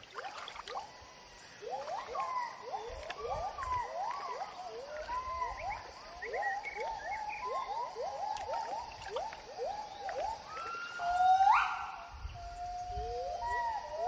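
Gibbon song: a run of short whooping notes, about two a second, followed by louder, longer notes that swoop upward in pitch about eleven seconds in and again near the end.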